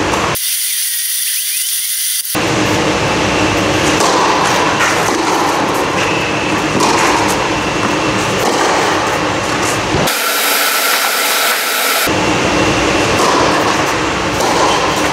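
Steady, loud machine drone with a constant hum, typical of the blower that keeps an air-supported tennis dome inflated. Twice, for about two seconds each, the low part of the drone drops out and only a high hiss is left.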